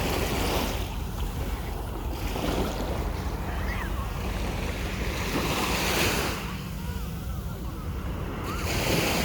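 Sea waves washing onto the shore, the rush swelling every few seconds, with wind buffeting the microphone.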